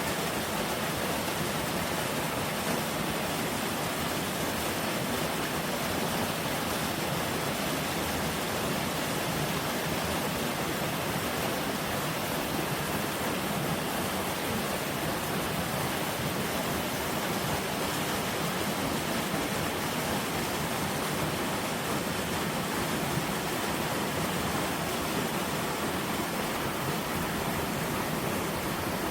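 Mountain stream rushing steadily over rocks, fed by melting spring snow.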